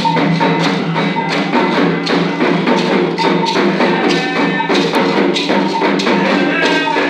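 Music with a quick, steady percussive beat over sustained tones.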